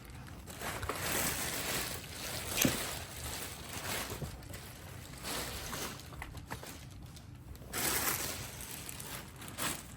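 Packaging being handled while a new upright vacuum is lifted from its box: a run of rustling, crinkling swishes of plastic wrap and cardboard, with a sharp knock a little under a third of the way in.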